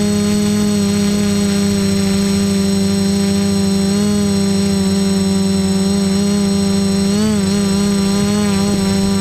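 Quadcopter's electric motors and propellers running in flight, a loud, steady whine with its pitch dipping and wobbling briefly about seven seconds in as the throttle changes, heard close up through the GoPro mounted on the craft.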